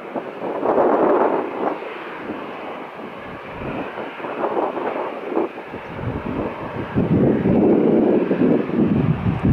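Boeing 737 jet engines running at taxi power as the airliner taxis, a steady rush that swells and grows louder near the end, with gusty wind buffeting the microphone.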